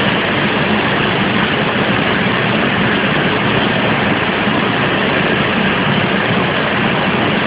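Steady, even rushing noise with a low hum underneath, like running machinery.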